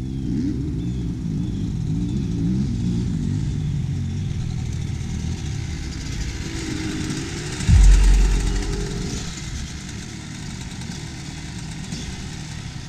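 Two dirt bike engines running and revving as the bikes ride up a dirt track, their pitch rising and falling. A sudden loud low rumble comes about eight seconds in, then the engines settle to a quieter, steadier sound as the bikes come to a stop.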